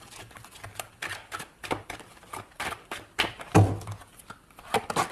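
Tarot cards being handled and set down on a glass-topped table: scattered light clicks and taps, with one louder knock about three and a half seconds in.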